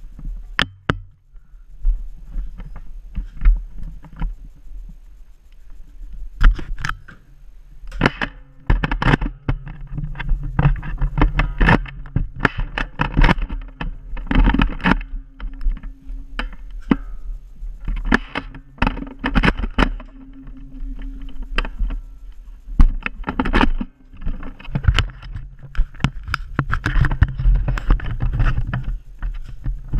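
Handling and movement noise from a camera carried by someone on the move: a steady low rumble broken by many irregular sharp knocks and thumps.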